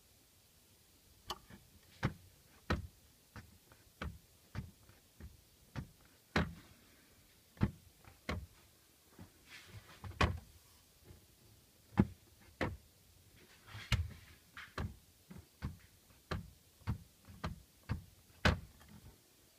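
Irregular sharp knocks and clicks, about one or two a second and uneven in strength, from the rear parcel shelf of a Peugeot 206 CC: the shelf is loose and knocking.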